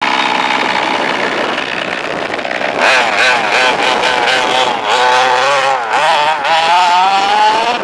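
29cc two-stroke petrol engine of a 1/5-scale HPI Baja 5B SS RC car running at high revs, then revved up and down repeatedly from about three seconds in.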